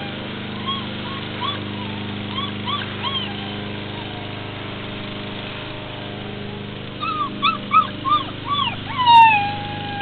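Puppy whining and yipping: a few short whimpers in the first few seconds, then a quick run of yips from about seven seconds in, ending in one long drawn-out whine.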